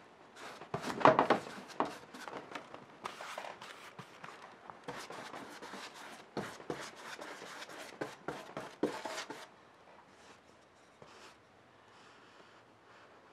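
Wide flat bristle paintbrush stroking and scrubbing a dark glaze across a painted board: a rapid, irregular run of scratchy swishes, loudest about a second in. The strokes stop about three-quarters of the way through, leaving only faint room sound.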